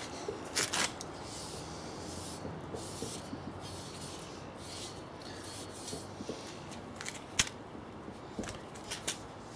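Faint scratchy rubbing of a damp cloth wiping paint on a bicycle frame, with several sharp clicks from handling, mostly in the second half.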